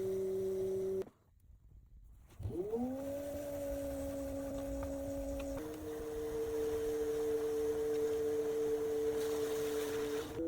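Electric pottery wheel motor whining steadily. It cuts out about a second in, spins back up with a rising whine, and settles a little lower in pitch about halfway through.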